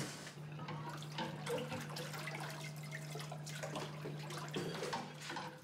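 Water running from a tap into a sink, with many small irregular splashes.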